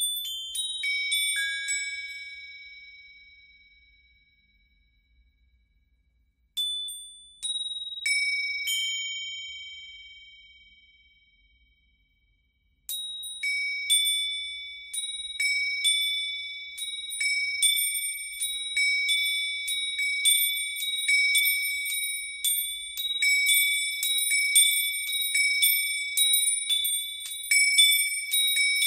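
Metal chimes shaken, their high bright tones striking in clusters and ringing on. Two short flurries each ring out and fade away over a few seconds; then, from a little before halfway, continuous shaking keeps the chimes clashing and ringing without a break.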